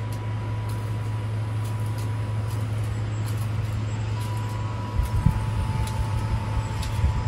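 A steady low mechanical hum, like a motor running, with a faint high steady tone above it and a few dull low knocks about five seconds in.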